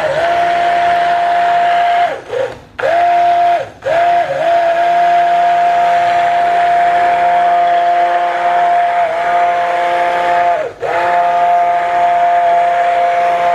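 Handheld stick blender running in soap batter with a steady whine, pulsed: the motor winds down and stops briefly about three times and starts up again. The batter is being blended up to trace.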